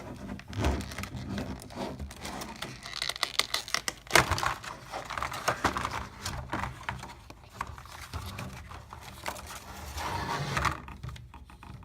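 Wireless doorbell's retail packaging being opened and unpacked by hand: crinkling, rustling and tearing with many small clicks, and a sharp knock about four seconds in.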